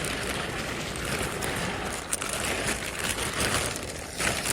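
Dry fishing groundbait rustling steadily as it is poured into a container and mixed by hand.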